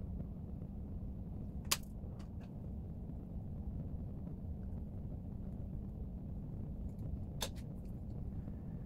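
Steady low rumble of background room noise, with two sharp clicks, one about two seconds in and one near the end.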